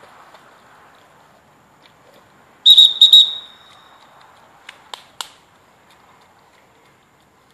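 Dog training whistle blown in about three quick, loud blasts nearly three seconds in, the repeated-pip recall signal calling the swimming dog in to the handler. A few sharp clicks follow about two seconds later.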